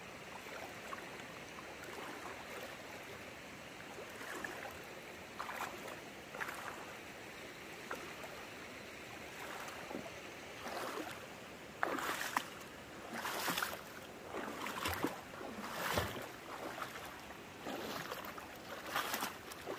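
Steady rush of a shallow river with a few soft splashes. From about twelve seconds in comes a run of louder, irregular footsteps and knocks on the rocky bank and trail.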